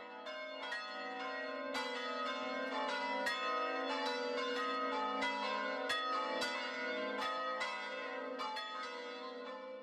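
Church bells ringing: several bells struck in quick, uneven succession, their tones overlapping and ringing on between strikes.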